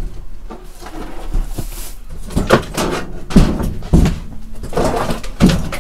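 Thumps, knocks and clatter of objects being moved about while someone rummages low down and lifts out an old electric fan's motor. There is a soft rustle about a second in, and the loudest knocks come around the middle.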